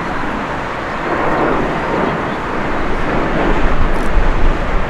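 Jet airliner engine noise: a steady, dense rush that grows louder over the last couple of seconds, with a low rumble underneath.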